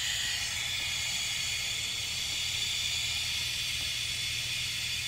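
Water hissing steadily out of the original Croydon high-pressure float valve as it refills the cast iron cistern.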